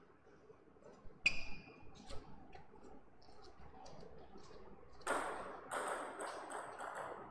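Table tennis ball bouncing: a sharp, ringing click about a second in and another shortly after, then a quick run of taps near the end as play is about to resume.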